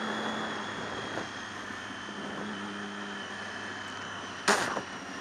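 Motorcycle engine running steadily at cruising speed, with wind rush. About four and a half seconds in, one short sharp puff of breath: the rider blowing to clear a hair from his mouth.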